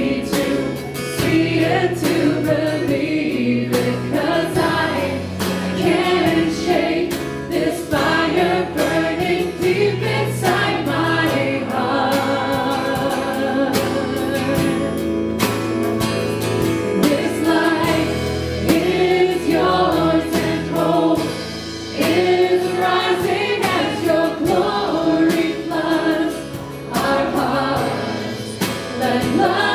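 A live worship band playing a contemporary worship song, with voices singing over the band and frequent sharp percussive hits.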